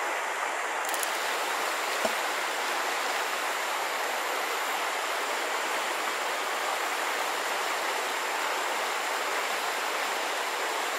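Steady rushing noise of the creek's flowing water. About two seconds in there is one brief faint plop as the thrown fishing magnet lands in the water.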